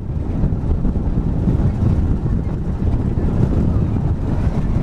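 Gusty mountain-top wind buffeting the camera microphone: a loud, constant low rumble.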